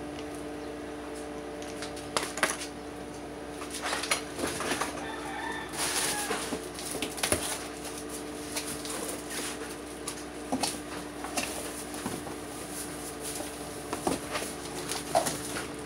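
Cardboard box and its contents being handled: rustling and scattered knocks of cardboard, over a steady hum.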